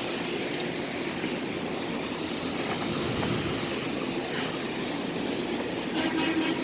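Steady running noise of pressure-washing equipment working the membrane roof: a constant hiss and rush with a low steady hum underneath.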